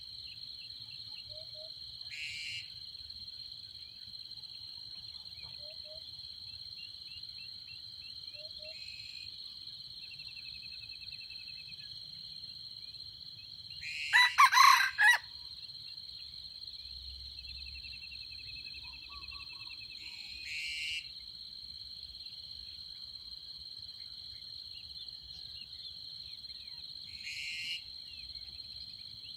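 Red junglefowl rooster crowing once, loudly, about halfway through. Under it runs a steady high-pitched insect drone, with a few brief fainter calls every several seconds.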